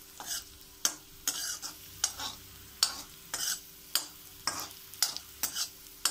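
Slotted steel spoon scraping and stirring raisins around a hot iron kadai, about two strokes a second, over the light sizzle of the raisins frying in ghee.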